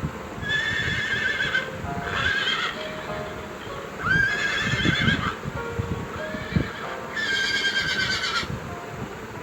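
A horse neighing: four whinnies of about a second each, wavering in pitch, over background music.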